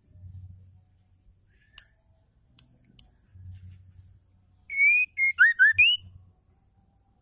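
White-rumped shama (murai batu) singing: a few faint ticks, then about two-thirds of the way in one loud phrase of clear whistled notes, a long note followed by a quick run of short notes that dip and rise.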